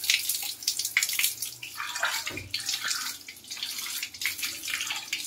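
Water splashing and spattering on ceramic wall and floor tiles, uneven and continuous, as the tiled surface is rinsed by hand.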